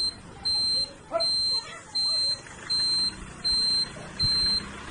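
A loud, high-pitched electronic beep repeating steadily, about once every three-quarters of a second, each beep lasting about half a second.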